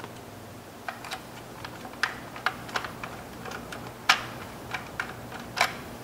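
Scattered light clicks and taps of hard plastic parts being handled: a new power window switch being fitted to its door-panel bezel and a small screw being set with a Phillips screwdriver. The clicks come irregularly, about a dozen, the sharpest about four seconds in.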